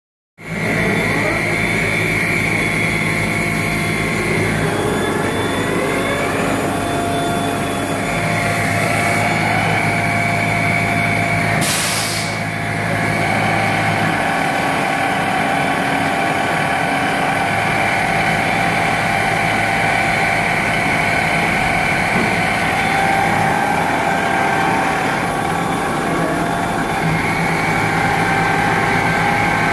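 CNC machine tool running, with a steady machine whine whose tones step to new pitches several times, a rising whine about five seconds in, and a short hiss about twelve seconds in.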